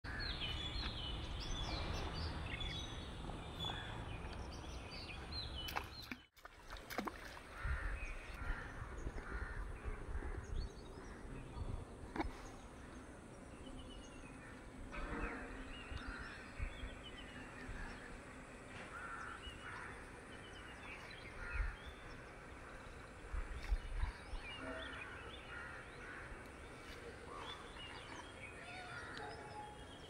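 Outdoor ambience with birds calling and chirping over a steady background noise, with a few low thumps. The sound drops out briefly about six seconds in.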